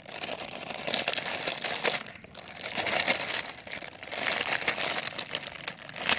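Clear plastic film crinkling and rustling as hands pull it off a packaged toy, in three spells of crackling.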